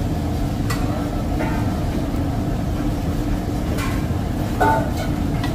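Steady low roar of a commercial kitchen's gas range, with a few brief clinks of steel utensils against the pot as stock is poured into a large kadai.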